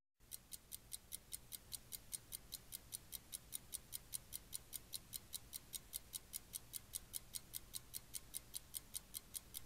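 Fast, steady ticking of a clock or timer sound effect, about four to five faint ticks a second, counting off thinking time.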